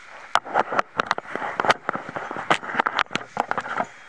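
Gusty wind with a dense run of irregular sharp crackles and clicks.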